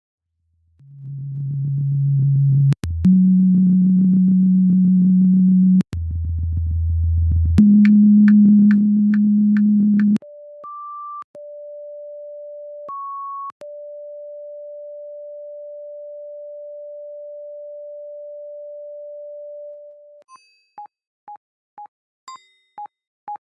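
A series of computer-generated tones built in Audacity. Low buzzing tones change pitch every few seconds. A steady pure tone follows, broken twice by a brief higher beep like a telephone signal, and near the end short beeps repeat about twice a second.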